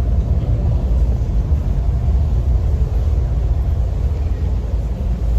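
Steady deep rumble with a faint hum: water rushing through the Hoover Dam's large penstock pipes and the hydroelectric plant.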